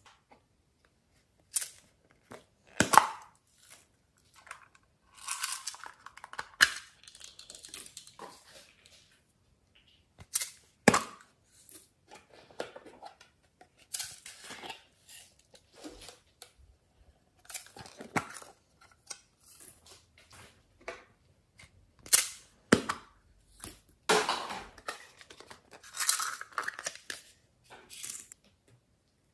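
Small plastic containers handled at close range: sharp clicks and snaps of their lids being pulled open and pressed shut, with a few stretches of dry rustling from glitter being shaken out.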